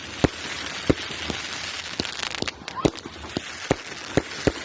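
Overlord firework cake firing: eight sharp bangs spread over about four and a half seconds, over a continuous crackling hiss, with a short rising whistle a little before the middle.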